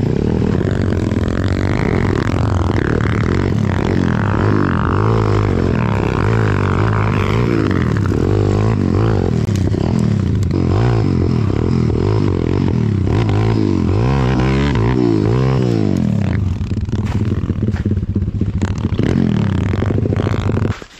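190cc single-cylinder four-stroke pit bike engine revving up and down again and again in quick rises and falls over a steady drone. The sound cuts off abruptly near the end.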